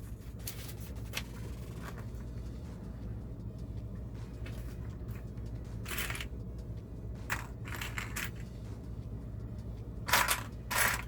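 LEGO plastic pieces handled during building: scattered small clicks and rustles, the loudest cluster about ten seconds in, over a steady low hum.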